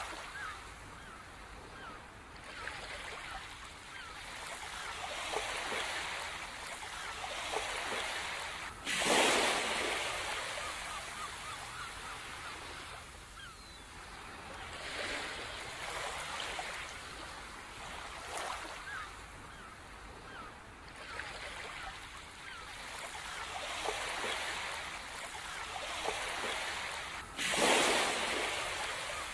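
Ocean surf washing in and out in slow swells, with a louder wave breaking suddenly about nine seconds in and another near the end. Faint short bird calls over the surf.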